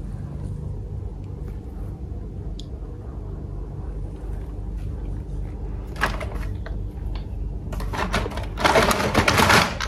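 Plastic toys clattering and knocking together as they are rummaged through in a toy basket. A few clicks come about six seconds in, then denser clatter that is loudest near the end, over a low steady hum.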